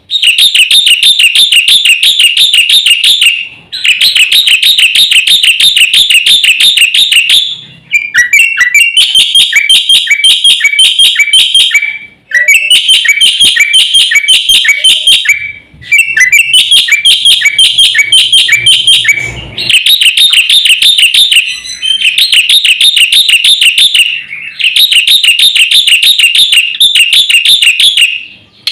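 Songbird singing loud, rapid chirps, about eight a second, in repeated phrases of three to four seconds with short breaks between them; the phrases in the middle are made of quick notes that drop in pitch.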